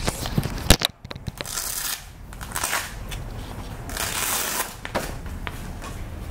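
Rustling in several short bursts as a newly bought back-support corset and its packaging are handled, with a sharp click a little under a second in.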